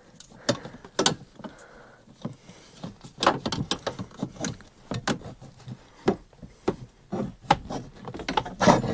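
Irregular clicks and knocks from hands working a carpet-covered panel loose from the base of a van seat, over the battery compartment and wiring.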